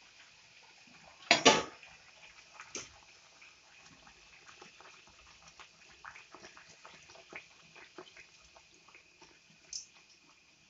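Ney pathiri, a flattened rice-flour dough round, deep-frying in hot oil in a steel kadai: a short loud burst about a second and a half in, then scattered faint crackles and pops of the oil with light clicks of a perforated steel skimmer against the pan.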